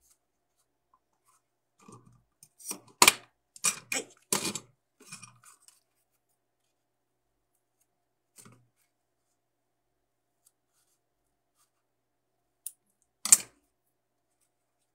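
Craft-work handling noise: a quick run of short, sharp scratchy snips and scrapes about two to five seconds in, then a faint one and two clicks near the end, from scissors and pink craft-foam pieces being handled on a tabletop.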